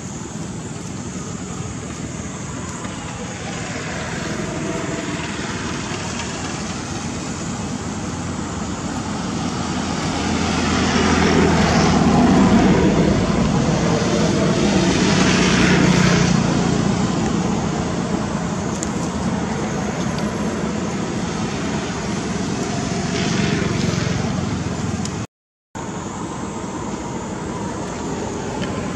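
Steady road-traffic noise of passing motor vehicles, swelling twice in the middle as vehicles go by.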